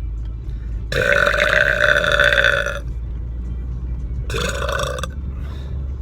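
A man burping loudly twice: a long belch of about two seconds, then a shorter one about a second and a half later, over the steady low rumble of the car.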